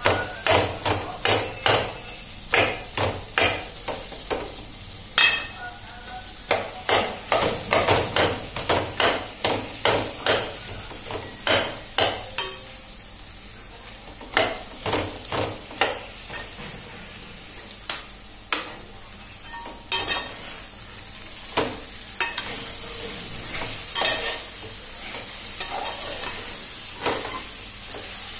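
A metal ladle stirring sliced potatoes and fenugreek leaves frying in an aluminium pot, clinking and scraping against the pot in quick runs over a steady sizzle. The clinks come thick for the first half and thin out later, leaving the sizzle more to the fore.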